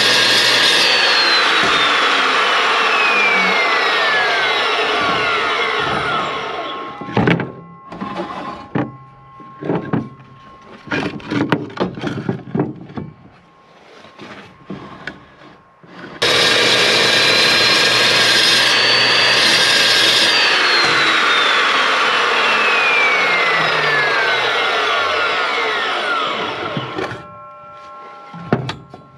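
Evolution metal-cutting chop saw run through thick steel plate twice, each run starting abruptly and lasting several seconds, with a whine that falls steadily in pitch as the blade bites. Between the two cuts come a series of separate metal knocks and clanks.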